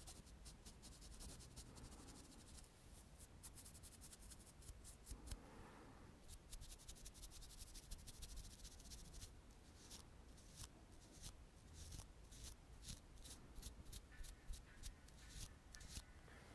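Faint, quick scratchy strokes of a makeup tool brushed close to the microphone, sparser for a few seconds and then coming in rapid runs.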